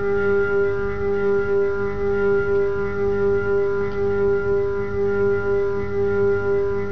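Music: a droning chord of steady held tones that waver slightly in level, with no beat.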